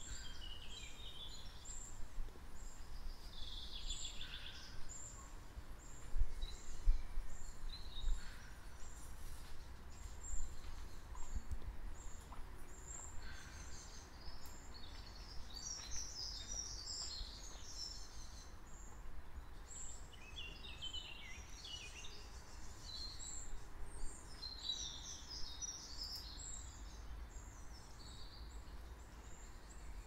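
Several songbirds singing in a mixed chorus of chirps and trills, with a high note repeated evenly about twice a second throughout. A steady low rumble lies beneath, with a few louder low thumps around the first quarter.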